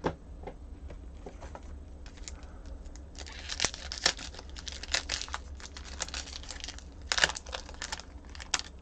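A foil trading-card pack wrapper being torn open and crinkled by hand, starting about three seconds in as a dense run of sharp crackles.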